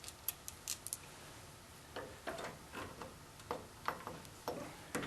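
Light metallic clicks and knocks of hand work on a Grizzly G4003 lathe's change-gear train as a wrongly mounted gear pair is taken off: a few sharp clicks in the first second, then from about two seconds in a run of clinks, two or three a second.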